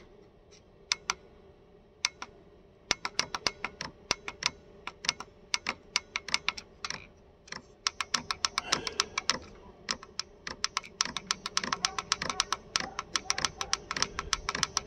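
Fuel dosing pump of a Chinese 8 kW diesel air heater ticking: a few scattered clicks, then a steady run of about three a second that quickens to about five a second near the end as the pump rate is turned up. The pump is priming its fuel line before the heater makes heat. A faint steady hum runs underneath.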